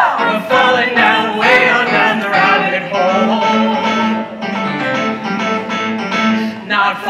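Music for a stage musical's dance number, with sustained held notes through the middle.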